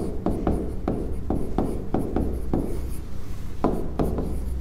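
A pen writing on a board: about a dozen short, quick strokes as words are written, over a steady low hum.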